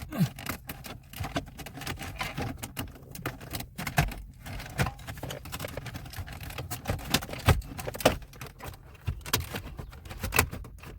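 Plastic dashboard trim panel of a 2005 Toyota Camry being worked and pressed into place: an irregular series of clicks and knocks of hard plastic as its clips snap in.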